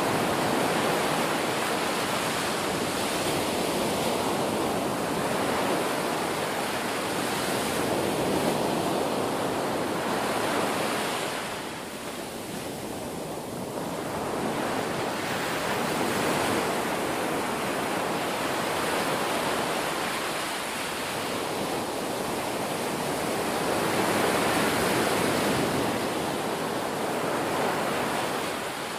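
Sea surf washing in and breaking on the shore, a continuous rushing noise that swells and eases, dipping for a couple of seconds about twelve seconds in.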